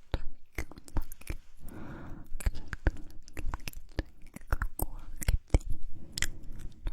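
Close-miked ASMR mouth sounds: quick, irregular wet clicks and smacks of lips and tongue, with a short breathy whisper-like stretch about two seconds in.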